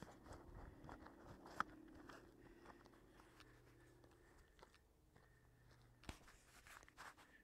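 Near silence with faint scattered crackles and clicks, and a sharper click about a second and a half in and again near the end.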